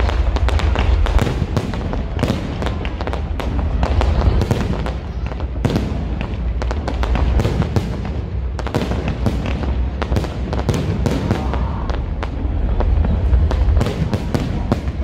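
Aerial fireworks display: a dense, continuous crackle of many rapid sharp pops from crackling stars and bursting shells, with a steady low rumble underneath.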